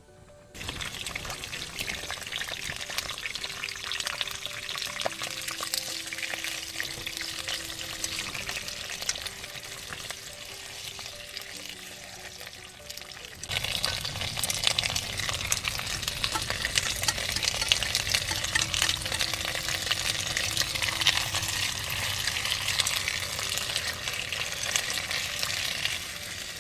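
Peas and tofu sizzling as they fry in a pan, with stirring. The sizzle starts about half a second in and grows louder and busier about halfway through.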